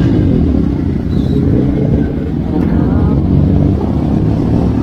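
Motorcycle engines running steadily while riding in a group, heard from the rider's own bike, under a haze of road and wind noise.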